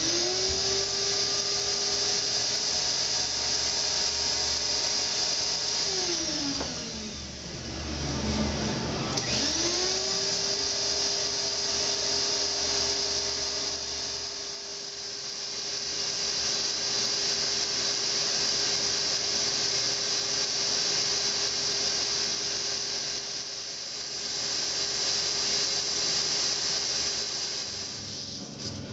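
A small electric motor runs with a steady whine and a rush of air. About six seconds in it winds down, and about three seconds later it spins back up and runs steadily again.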